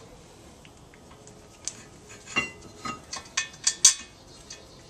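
Sharp metallic clinks and clicks as the front brake caliper bracket of a 2004 Mazda 6 is set back in place against the steering knuckle and rotor, roughly eight of them from about a second and a half in, the loudest near the end.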